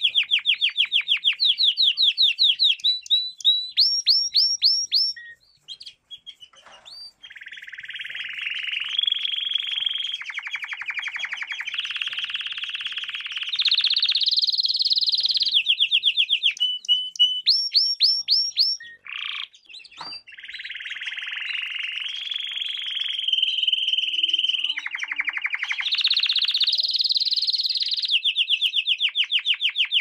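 Domestic canary singing a long, loud song of rapid trills: fast runs of repeated notes alternate with dense rolling phrases, each phrase jumping to a new pitch. There are two short breaks, about five seconds in and near twenty seconds.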